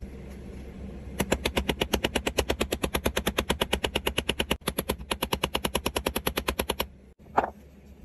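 Small ball-peen hammer tapping rapidly on a metal pin in a pocketknife's handle, about ten light blows a second with a brief break midway. A single separate knock follows near the end.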